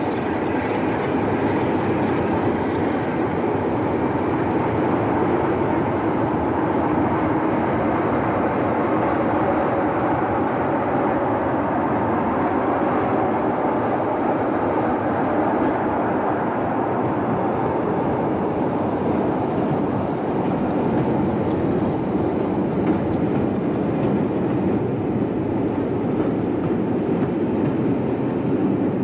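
Pair of Class 47 diesel locomotives, with their Sulzer twelve-cylinder engines, working under power as they pull a parcels train away. The engine sound is steady and heavy throughout, with a faint high whine in the middle.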